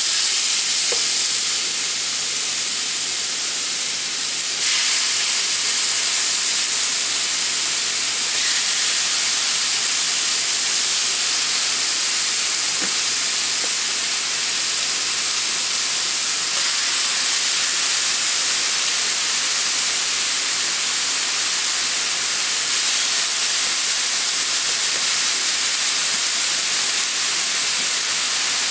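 Marinated chicken pieces sizzling on a hot electric griddle: a steady hiss that gets louder as more pieces go down, about five seconds in and again about sixteen seconds in.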